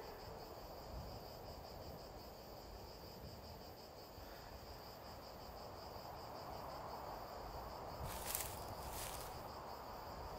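Crickets chirping steadily in a quiet outdoor background, with two short rustling scuffs near the end.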